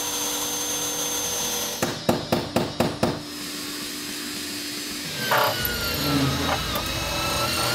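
Power tools cutting out a spot weld in the steel floor pan. A hand-held tool runs steadily, about six quick sharp knocks come about two seconds in, and then a DeWalt 18V cordless drill with a spot-weld cutter bit runs, boring through the spot weld, its tone slowly falling near the end.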